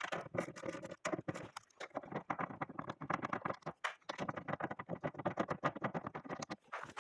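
Ratchet wrench clicking in rapid runs, with brief pauses between strokes, as the two 10 mm nuts holding the rear door check strap are undone.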